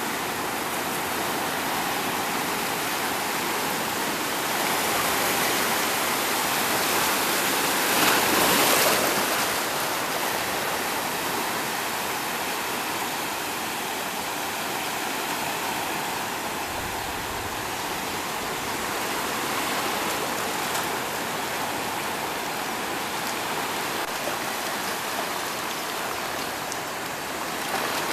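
Sea surf washing in over a shallow shore, a continuous rush of breaking water that swells to its loudest about eight or nine seconds in.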